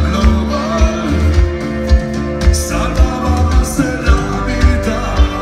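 Rock band playing live with a singer, over a steady kick-drum beat of about two hits a second.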